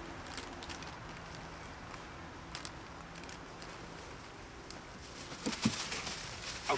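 Soft scattered crackles and rustles, like footsteps in dry fallen leaves and dogs shifting about, over quiet woodland ambience, with a short low sound about five and a half seconds in.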